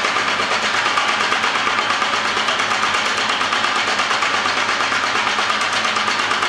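Homemade power hammer running on its test run, its hammer striking in a fast, steady, even run of strokes.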